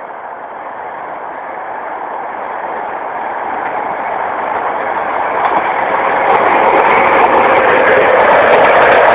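Electric-locomotive-hauled TLK passenger train approaching at speed: a steady rush of wheels on rail that grows louder throughout as it nears.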